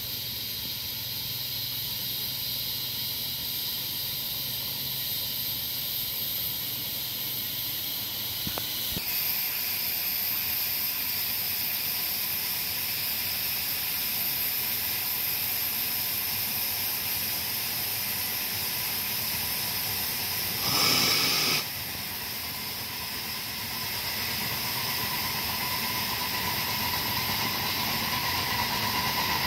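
Steady hiss of steam from a live-steam ride-on miniature locomotive, with a short, louder high-pitched blast about 21 seconds in.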